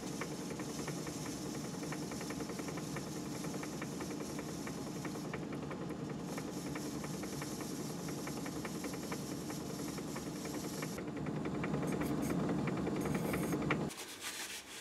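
Myford ML7 hobby lathe running, turning a brass bar down to piston size: a steady running sound with fine rapid ticking, a little louder near the end, then it stops abruptly as the lathe is switched off.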